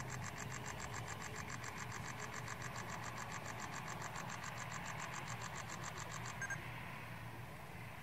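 An insect chirping in rapid, even pulses that stop abruptly about six seconds in, over a low, steady hum of car engines.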